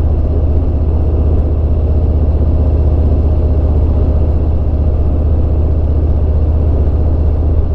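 Harley-Davidson Road King's Milwaukee-Eight V-twin engine running at a steady cruise, a deep, even rumble.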